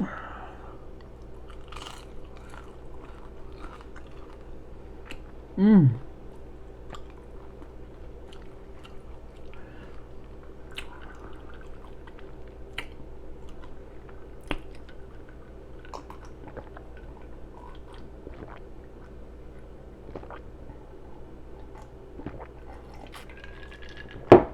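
Close-miked chewing of a burger and fries, with many small wet smacking clicks from the mouth. About six seconds in, a short, loud burp drops in pitch. A sharp click comes near the end.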